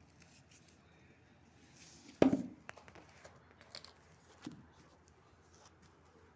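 A pink plastic-shelled steel food container knocks down on the floor about two seconds in with a sharp, briefly ringing thud. Two lighter knocks and a few light taps follow as a toddler handles and tips it.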